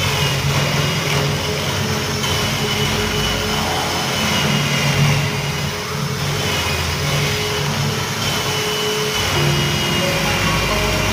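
Electric drill running steadily, turning the boring bit of a door lock-mortising jig as it cuts into the edge of a wooden door.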